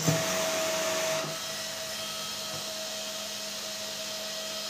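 12 V brushless computer cooling fan running off a homemade three-cell lithium-ion pack: a steady whoosh of air with a constant motor whine. It gets a little quieter about a second in.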